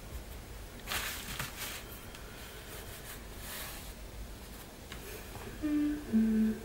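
A woman humming a few short held notes that step down in pitch, loudest near the end. Earlier come two brief rustles of a hand rubbing over a paper-covered journal cover.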